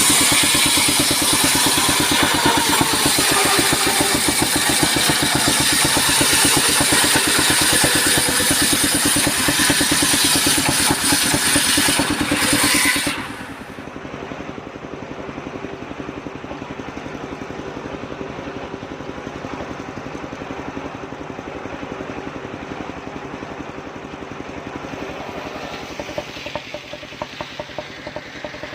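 Engine-driven homemade circular sawmill running loud with a strong hiss for about thirteen seconds, then dropping suddenly to a quieter, steady engine run.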